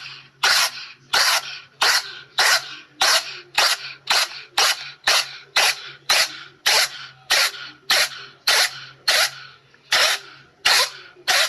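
A cat sneezing over and over in a rapid fit, about two short, sharp sneezes a second.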